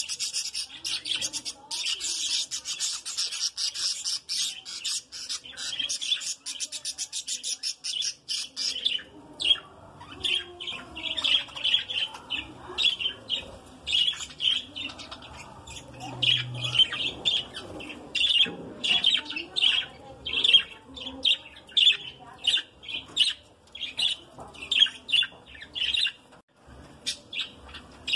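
A group of budgerigars chirping: a fast, dense chatter for roughly the first third, then separate chirps coming several times a second.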